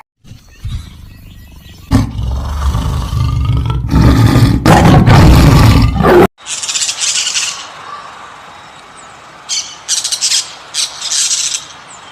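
A loud, rough, low-pitched animal call lasting about six seconds, which cuts off abruptly. It is followed by several short bursts of high-pitched bird chirping.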